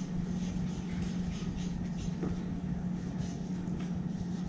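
Short, repeated strokes of a marker on flip-chart paper, heard faintly over a steady low hum.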